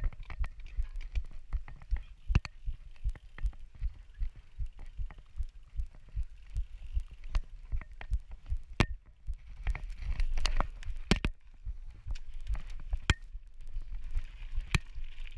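Canyon Spectral mountain bike rattling and thudding over a bumpy dirt singletrack: a dense, irregular run of low thumps and knocks, with a handful of sharper clacks among them and a faint hiss that swells and fades.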